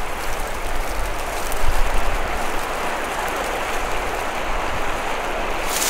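Steady rush of flowing river water, with a low wind rumble on the microphone.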